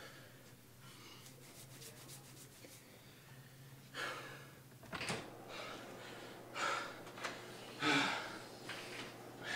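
Quiet room tone with a low steady hum. From about four seconds in come a few short, soft rustles and breaths, and near the end a door's lever handle being worked.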